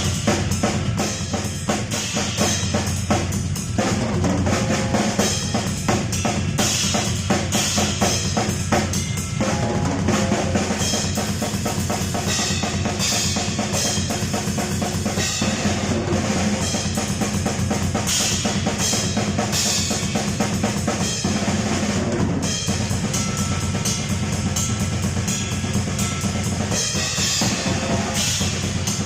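Drum kit played continuously in a steady groove, with bass drum and snare under the bright wash of Vansir Power series bronze cymbals.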